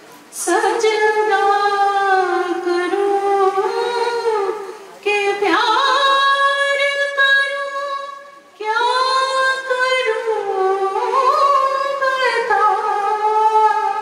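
A woman singing solo without accompaniment, in three long phrases; the middle phrase rises to a long held high note.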